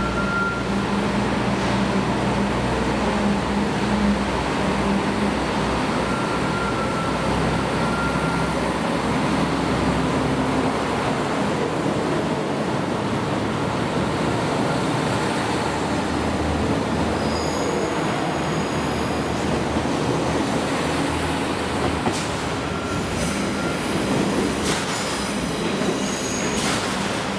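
KiHa 66/67 series diesel railcars running slowly through the station: a steady diesel drone and rumble of wheels on rail. Several short high-pitched wheel squeals come and go, and there are a few sharp clicks near the end.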